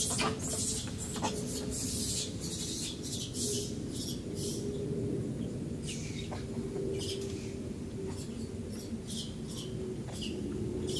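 Outdoor ambience: a steady low hum with short, high chirps scattered irregularly throughout, thickest in the first few seconds.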